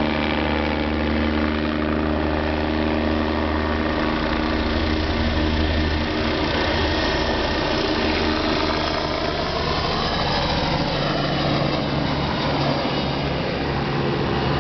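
Rescue helicopter flying away: its turbine and rotor run steadily and loudly, and the tones in its sound shift in pitch partway through as it moves off.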